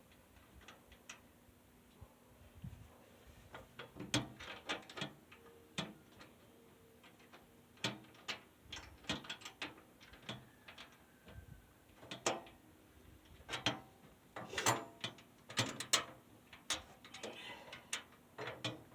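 Ratchet wrench clicking in short, irregular runs as nuts are tightened onto the bolts of a wheelbarrow frame, with clinks of metal parts between.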